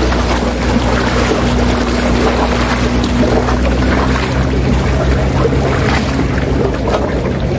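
A steady low engine drone whose tone shifts about four seconds in, over a wash of wind and waves.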